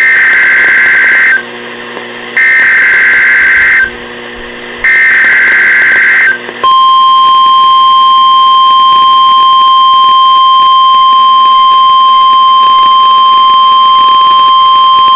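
NOAA Weather Radio alert signal: three buzzy SAME digital header bursts, each about a second and a half long with a second's gap between them, then the steady single-pitch warning alarm tone held for about nine seconds. Together they mark the start of a severe weather alert broadcast.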